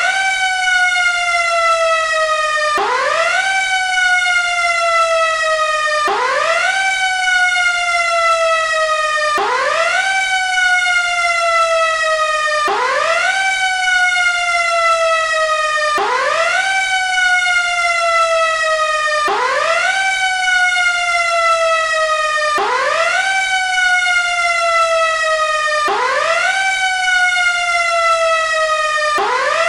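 Federal Q-siren, the mechanical fire-engine siren, worked by hand: again and again it is wound up to a quick rising wail and left to coast slowly down in pitch, about once every three seconds.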